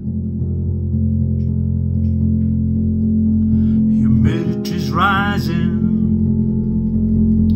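Pop music with a steady bass line and held chords, the intro of a disco song; a voice sings a short phrase about two thirds of the way through.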